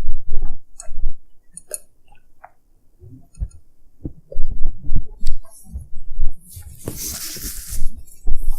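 A man chewing a mouthful of Philly cheesesteak sandwich close to the microphone: irregular low, wet thumps and small clicks, with a breathy rush of noise about seven seconds in.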